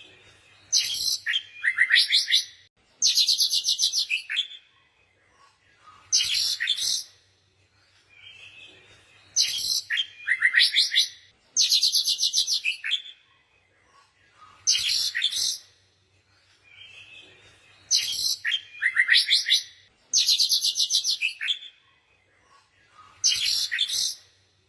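Birds chirping: bursts of rapid, high trilled notes, each about a second long, with quieter twittering between them. The same sequence of calls repeats about every eight and a half seconds, over a faint low hum.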